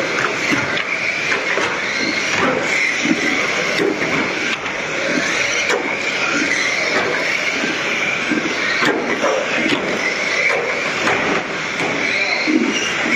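Several small electric radio-controlled ministox cars racing on a carpet track: a steady, slightly wavering whine of motors and gears mixed with tyre noise, with scattered clicks and knocks as cars bump the barriers and each other.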